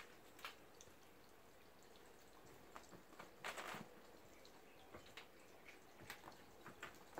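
Near silence: room tone with scattered faint ticks and one short rustle about three and a half seconds in.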